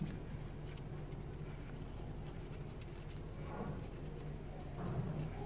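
Quiet room background with a steady low hum and a few faint, indistinct sounds.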